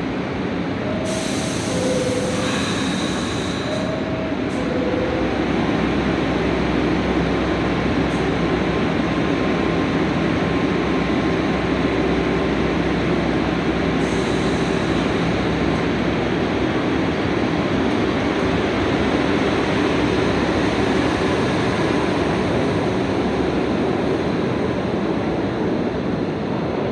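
New York City subway 3 train running with a steady loud rumble and rail noise, growing a little louder about six seconds in. Near the start there is a brief hiss and two falling two-note tones.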